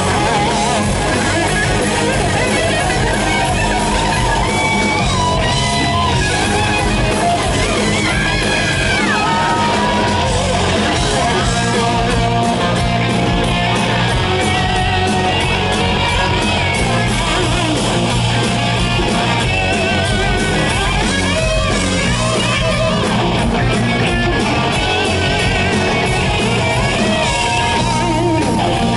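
Hard rock band playing live: loud electric guitar over bass and drums, with some singing.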